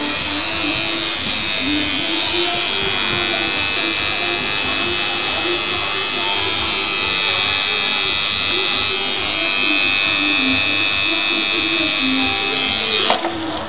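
Electric tattoo machine buzzing steadily as the needle works ink into the skin of a forearm.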